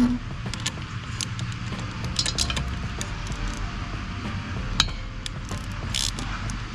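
Scattered metallic clinks and taps of wrenches on the bolts of a stainless-steel muffler's mounting brackets as they are snugged up, over quiet background music.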